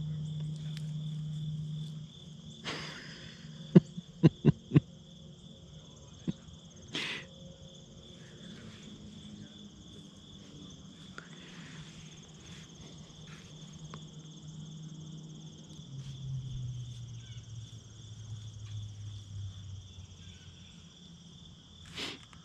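Steady high-pitched insect chorus, with a low hum underneath that drops off about two seconds in and later slides lower in pitch. About four seconds in comes a quick run of five sharp clicks, the loudest sound, and there is a single knock a few seconds later.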